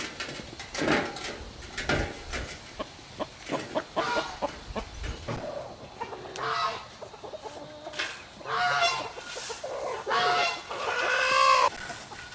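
Chickens clucking: a string of short calls, with several longer, louder calls in the second half.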